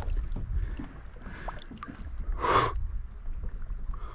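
Water sloshing and lapping as a large northern pike is released by hand beside a kayak, with one short, louder rush of noise about two and a half seconds in.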